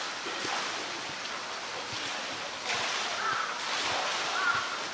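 Water in the polar bear pool lapping and sloshing, a steady wash of noise that grows louder partway through.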